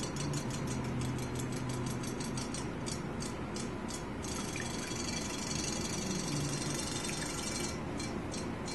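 Battery-powered Zuru Robo Fish clownfish toy swimming in a glass bowl of water: its tail mechanism makes a fast, even ticking. For a few seconds around the middle the ticking gives way to a steady hiss, then resumes.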